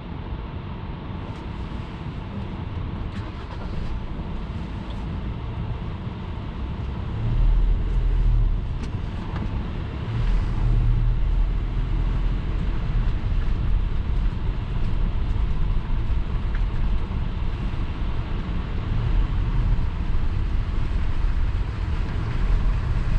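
Car driving, heard from inside the cabin: a steady low rumble of engine and tyres with road noise over it. It grows louder about seven seconds in and again around ten seconds.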